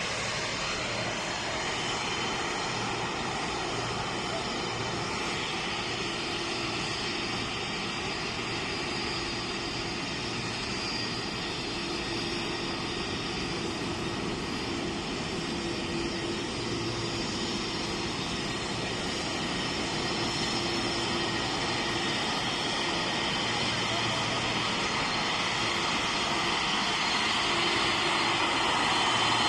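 Boeing 747-430 with its four General Electric CF6-80C2 turbofans running at taxi power: a steady jet rumble with a high turbine whine. It grows louder over the last several seconds as the jet turns toward the listener.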